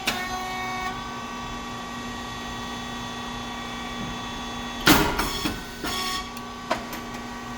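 Rice cake popping machine running: a steady hum from its hydraulic pump motor with several faint steady tones, then a loud sudden burst about five seconds in as the heated moulds open and release the puffed cakes, followed by a few clicks.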